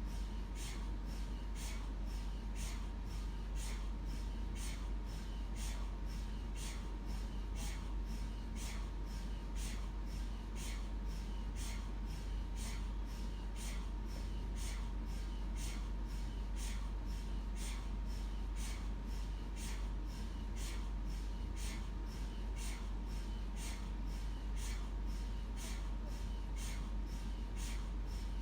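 MRI scanner knocking in a steady, even rhythm of about two knocks a second, over a constant low hum and a faint steady tone.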